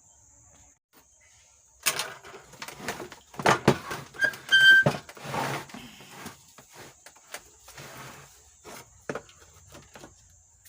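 Amplifier circuit board being handled and refitted into its metal chassis: a string of irregular clicks, knocks and scrapes, the loudest a little past the middle, with a brief squeak.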